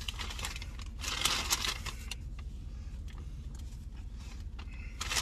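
Paper fast-food bag rustling and crinkling as hands dig into it, loudest about a second in.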